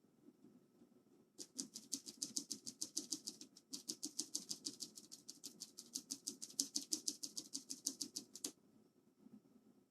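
A clicky Cherry MX Blue keyboard switch pressed rapidly over and over, about eight clicks a second, starting a little over a second in and stopping shortly before the end, with a brief pause about halfway. The key is being hammered to work an isopropyl alcohol and water cleaning mixture through a sticky switch.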